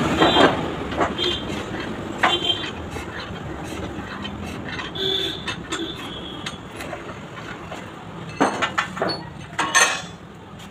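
Steel tools clinking and scraping against a tractor front axle, with scattered sharp metallic knocks, a cluster of them near the end, over a steady background noise that slowly fades.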